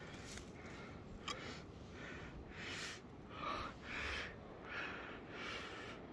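A thin sheet of ice being pulled out of a shallow, half-frozen stream by hand: a single sharp click about a second in, then several short splashy rushes of water as the ice is lifted out and handled.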